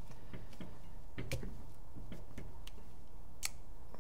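Small scattered metallic clicks and ticks of an Allen key turning the set screws out of the back cap of a Dye DAM paintball gun's regulator.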